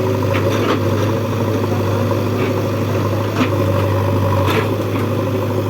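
Heavy diesel engine of earthmoving machinery running at a steady speed, with a few short sharp knocks along the way.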